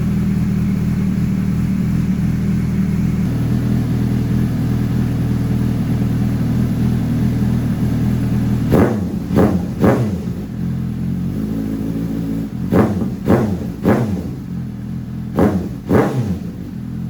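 Suzuki GSR 750's inline-four engine idling steadily through an SC Project aftermarket exhaust, then blipped hard eight times, in groups of three, three and two, each rev rising and dropping quickly back to idle.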